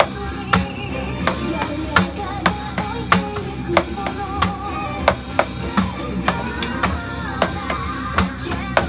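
Drum kit played along to a rock song with a sung melody: a steady beat of drum and cymbal strikes over the band recording.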